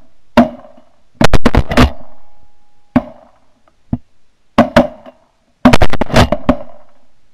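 Shotgun blasts from several guns firing at flying ducks, in quick volleys of up to five or six shots close together with short pauses between, each shot's report fading away afterwards.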